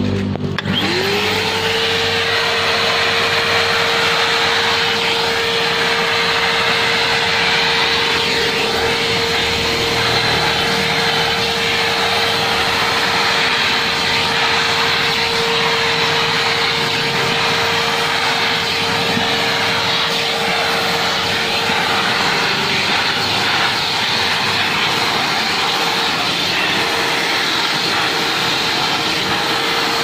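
Multipro 3-in-1 wet/dry vacuum cleaner switched on, its motor whine rising quickly in the first second and then running steadily over rushing air. Its nozzle is sucking shampoo foam and rinse water out of a wet cloth car seat.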